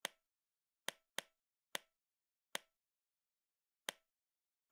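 The same short plop sound effect repeated about seven times at uneven intervals, each a sharp click with a quick decay and a faint ring, marking clay game pieces being set down on the board.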